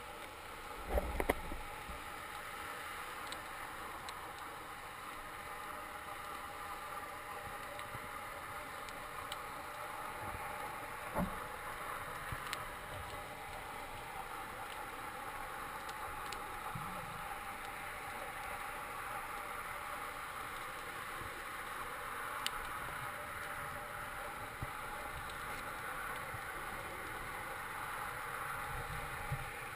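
Steady underwater hiss picked up by a diving camera, with a few faint knocks: the loudest about a second in, another around eleven seconds.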